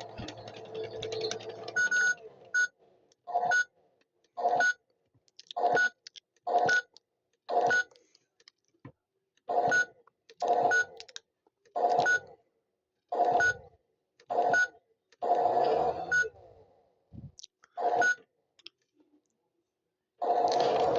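Toy washing machine's motor hum cuts off about two seconds in, followed by a run of short electronic beeps, roughly one a second and unevenly spaced.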